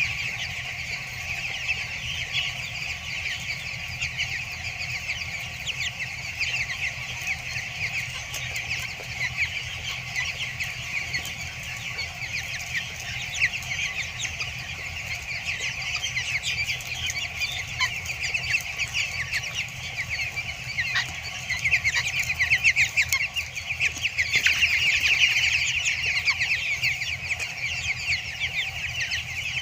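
A large flock of two-week-old broiler chicks peeping constantly, many short high chirps overlapping, growing louder about three-quarters of the way through. A steady low hum runs underneath.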